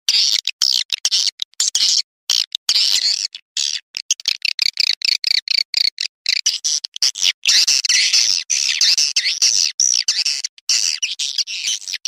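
Recorded swiftlet calls used as a lure sound for swiftlet houses: a dense, rapid twittering chatter. It is broken by many brief, abrupt silent gaps from the editing.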